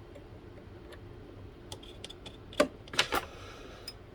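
Small metal tools and parts clicking and clinking while the propeller and drive dog are worked off an RC hydroplane's flex shaft: a few light ticks, then a cluster of sharper clicks about two and a half to three seconds in.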